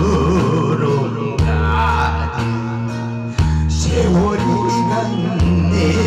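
A man singing a Korean song into a microphone through a PA system, over amplified accompaniment with a steady bass line that changes note about once a second.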